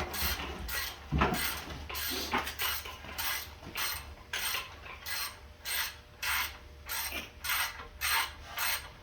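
Hand ratchet wrench being worked back and forth on a bolt, its pawl clicking in an even rhythm of a little over two strokes a second.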